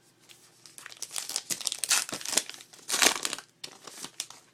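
A trading card pack's wrapper crinkling and tearing as it is opened, in a run of irregular crackles that is loudest around the middle and about three seconds in.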